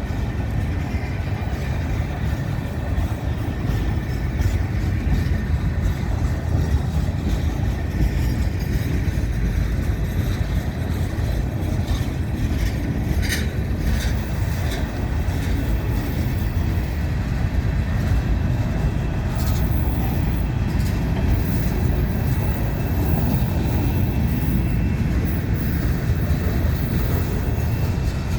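Freight cars of a manifest train rolling past: a steady rumble of steel wheels on rail, with a few sharp clicks roughly halfway through.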